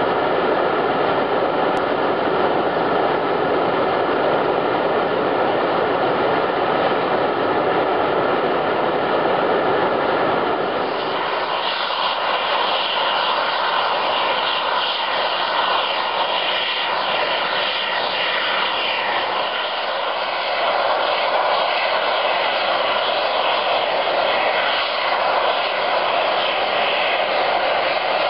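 Volcanic sulfur fumaroles venting steam under pressure: a loud, steady, jet-like hiss. About eleven seconds in, the deep part drops away and the hiss turns higher and thinner.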